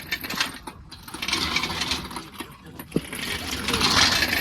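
Metallic clinking and rattling of tools and loose metal parts, with a sharp click about three seconds in, during work on a car's engine bay.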